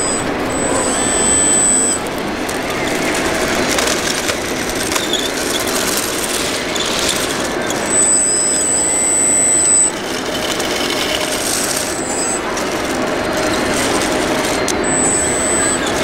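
Radio-controlled model bulldozer running, its motors giving a high thin whine that comes and goes several times, over the steady murmur of a crowded exhibition hall.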